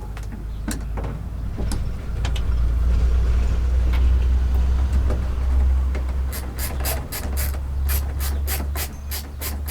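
Heavy deep rumble on the microphone with scattered knocks of hand work on a van door mirror. About six seconds in, a run of quick, sharp, evenly spaced clicks starts, roughly four a second.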